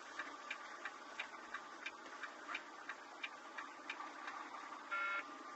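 Turn-signal flasher clicking steadily inside a truck's cab, about three clicks every two seconds, over steady cab noise. A short electronic beep sounds near the end, louder than the clicks.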